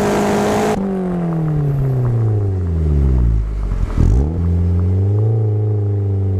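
A competition car's engine holds high revs, then goes off the throttle about a second in. The revs fall steadily for about three seconds as the car slows, with a brief clatter around the four-second mark, then settle to a low, steady run near idle.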